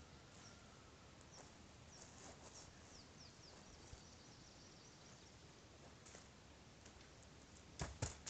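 Quiet open-air ambience with faint bird chirps, a quick run of short high falling notes in the middle. Near the end come a few loud crunching footsteps on the dry forest floor right by the microphone.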